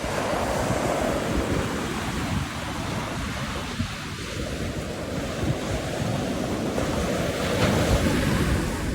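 Sea surf washing on the beach, with wind buffeting the microphone in a steady low rumble.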